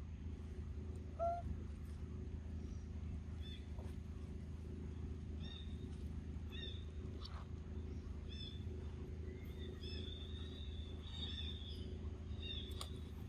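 Forest ambience. Short, high bird chirps repeat again and again over a steady low hum, with one brief, louder, lower call about a second in.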